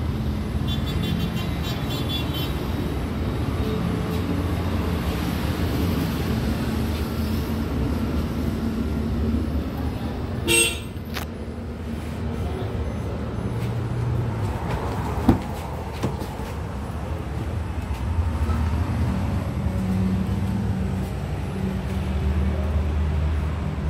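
Steady road-traffic rumble from passing vehicles, with a short car-horn toot about ten seconds in and a single sharp click a few seconds after it.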